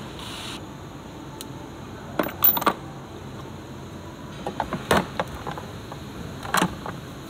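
Sharp metallic clinks and clanks of hand tools and suspension hardware being handled while a rear suspension arm is taken off a car. They come in a short cluster about two seconds in, then singly near five and six and a half seconds, over a steady background hum.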